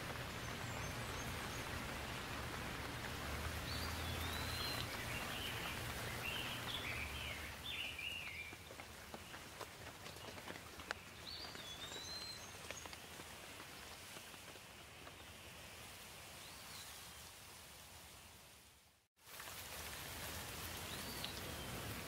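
Steady rain falling and dripping, with a few birds chirping now and then over it. The rain cuts out for a moment near the end and then comes back.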